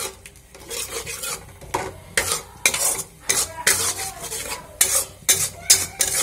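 Flat metal spatula stirring and scraping a thick tomato-and-spice masala around a metal kadai, in quick uneven strokes about two a second, with the masala sizzling. Ground spices and a little water are being mixed into the fried tomatoes to make the gravy.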